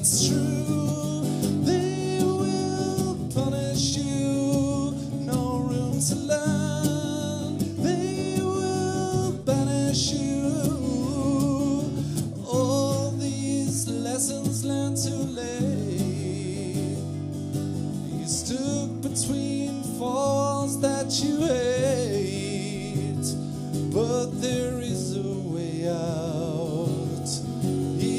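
A man singing with his own strummed acoustic guitar, a folk song performed live through a microphone.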